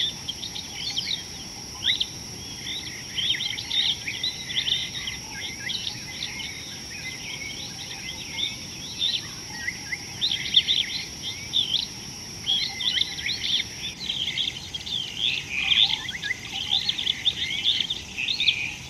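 Outdoor bird chorus: many birds chirping and calling in quick, overlapping short notes, over a steady high-pitched hum that thins out about three-quarters of the way through.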